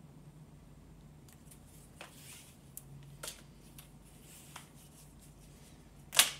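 Handling noises from a COOPH rope camera strap with leather ends: soft rustles and light clicks scattered through the middle, then one sharp, much louder click near the end, over a faint low hum.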